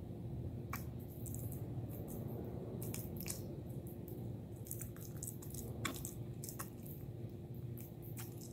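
A puppy gnawing a hard bully stick: irregular small clicks and crunches of teeth on the chew, over a steady low hum.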